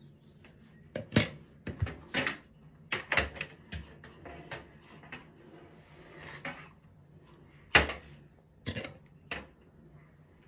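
Irregular sharp clicks and clacks from handling a flat iron and comb while sectioning and straightening hair. The loudest come about a second in and near eight seconds in, over a faint low steady hum.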